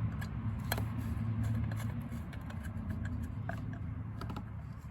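Scattered light clicks and scratching of a loose Torx bit turned by hand, driving small screws into a distributor rotor, over a low steady hum.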